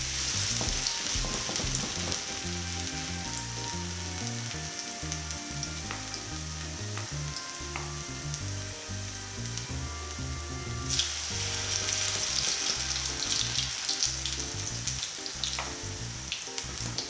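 Potato pancakes frying in hot oil in a frying pan: a steady sizzle that flares louder about eleven seconds in as another spoonful of grated-potato batter goes into the oil.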